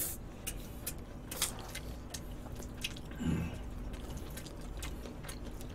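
Close-miked chewing of LA galbi (marinated short ribs): a run of small, wet mouth clicks, with a short low throat sound about three seconds in.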